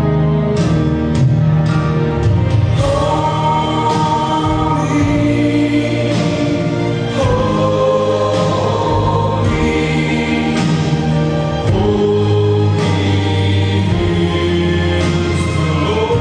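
Gospel music with choir singing, long held notes over sustained chords.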